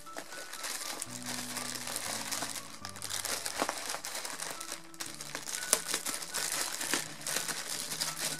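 Bubble wrap crinkling and rustling as hands handle it, with many small crackles. Background music with slow, held notes plays underneath.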